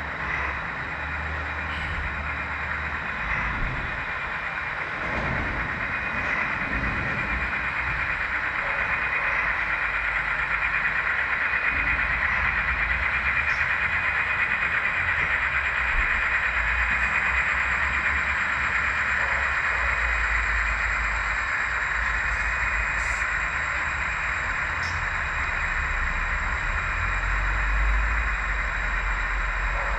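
Model train of ScaleTrains GP30 diesel locomotives hauling boxcars rolling past on the layout track, a steady whirring rumble of wheels and motors. It grows louder from about a third of the way in, as the locomotives and then the boxcars pass close by.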